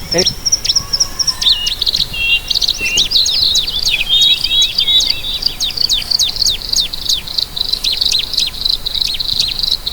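A dense chorus of many small birds chirping: short, sharp high chirps overlapping continuously, over a steady high-pitched drone.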